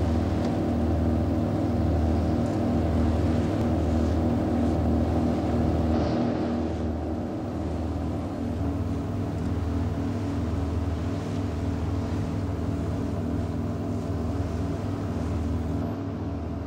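Naval patrol boat's engines running steadily under way: a low drone with a slow throb in the bass.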